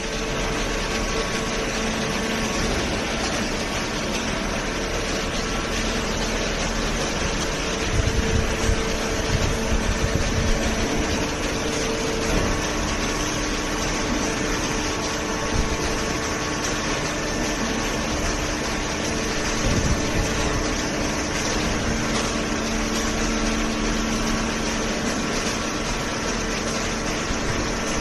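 Horizontal hydraulic cardboard baler and its feed conveyor running: a steady machine hum with a faint whine, and a few low thumps about a third of the way in and again about two-thirds through.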